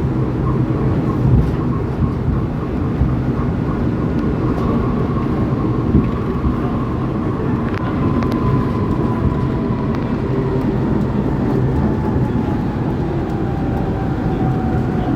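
A vehicle running: a steady low rumble, with a faint whine that slowly falls in pitch over the second half.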